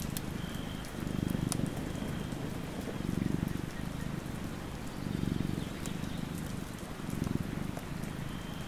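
Domestic cat purring in slow swells that rise and fall about every two seconds with its breathing, over a steady patter of rain.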